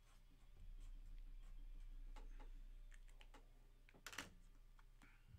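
Faint, scattered clicks and taps of hands working at a desk, with a louder cluster of clicks about four seconds in, over a low steady hum.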